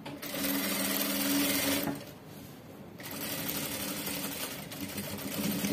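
Industrial lockstitch sewing machine running as it stitches elastic onto a skirt, in two runs with a pause of about a second near two seconds in.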